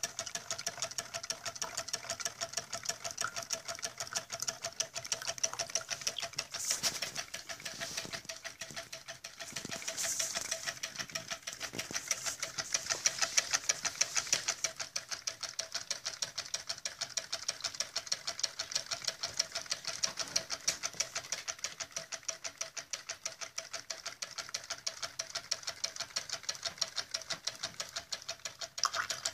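Homemade Stirling engine running and driving its water pump, its moving parts making a rapid, even clicking rhythm.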